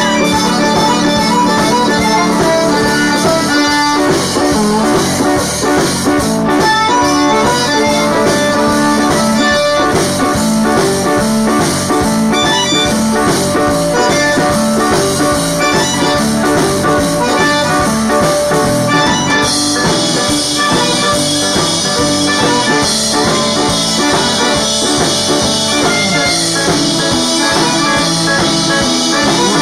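A live Cajun band playing: a Cajun button accordion leads with held reedy notes over an acoustic guitar, keeping a steady beat.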